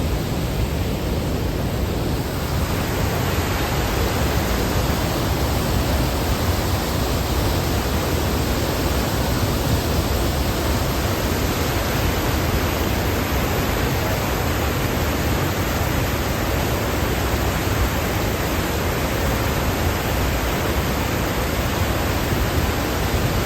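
Düden Waterfall's water rushing, a steady, even noise with no breaks.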